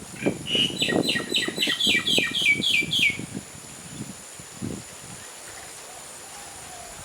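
A small bird giving a rapid run of about a dozen sharp chirps, roughly four a second, each slightly falling. It stops about three seconds in. Irregular low thuds and rustling run underneath the chirps.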